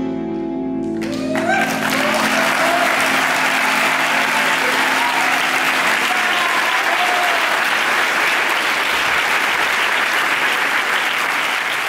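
A tango orchestra's last held chord rings for about a second, then the audience breaks into loud, steady applause with a few shouts from the crowd.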